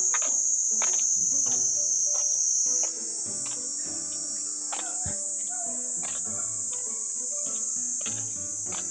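A steady, high-pitched summer insect chorus shrilling continuously, with soft background music under it. The chorus drops in level and shifts slightly higher about three seconds in.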